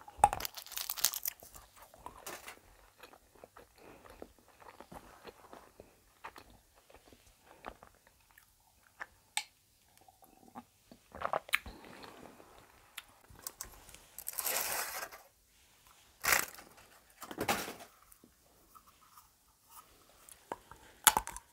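Close-up eating sounds of chocolate being bitten and chewed, with scattered crunches and wet mouth clicks. A drink from a mug comes partway through, and a few sharp snaps come near the end as she handles a large piece of white chocolate.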